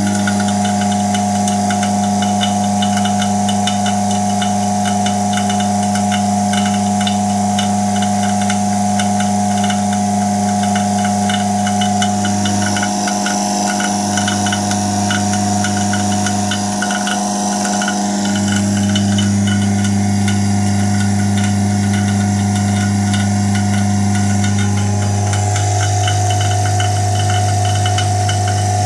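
Homemade fusor's high-voltage supply and vacuum pump running: a loud, steady electrical hum with a fast, rasping buzz over it. The deepest part of the hum cuts out briefly twice, about halfway through.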